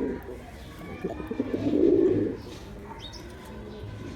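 Male domestic pigeon cooing: one low, throaty coo about a second and a half in, the loudest sound here, after the tail of another at the very start. A faint higher chirp follows about three seconds in.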